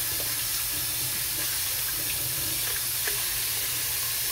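Kitchen faucet running steadily into a stainless steel sink, with hands being washed under the stream.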